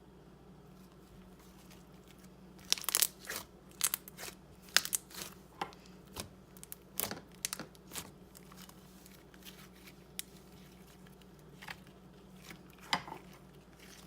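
Fluffy shaving-cream slime being squished and worked in the hands, giving sharp pops and crackles as trapped air bubbles burst. A quick run of pops starts about three seconds in, and a few scattered ones follow near the end.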